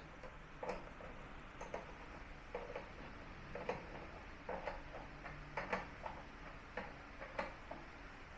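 Light clicks and taps of tools and parts being handled, at uneven intervals roughly once a second.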